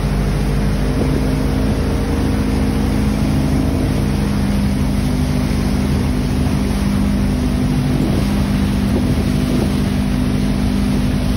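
Motorboat engine running steadily at towing speed, a steady drone with the rush of its churning wake and wind on the microphone.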